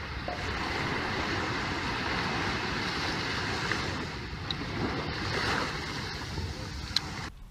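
Steady rush of surf breaking on a beach, with wind noise on the microphone. A single sharp click sounds near the end.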